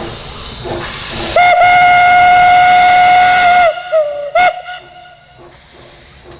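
Narrow-gauge steam locomotive's whistle: one long steady blast of about two seconds, then a short toot, over hissing steam escaping near the cylinders.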